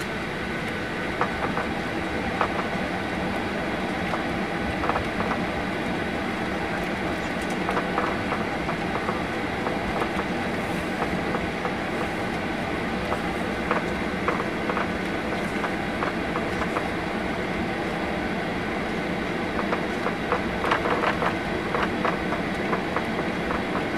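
Cabin noise of a Boeing 737-800 taxiing: the CFM56 engines' steady whine and hum at idle, with scattered clicks and rattles as the airliner rolls along the taxiway, a cluster of them near the end.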